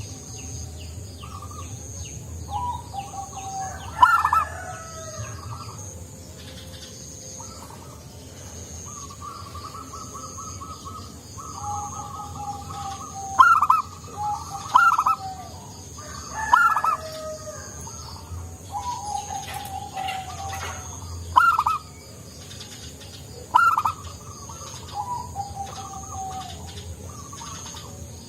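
Zebra doves cooing in repeated phrases, with about seven short, loud, sharp notes standing out among them.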